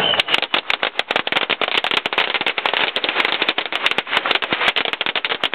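Strings of firecrackers going off in a dense, rapid run of sharp bangs without a break.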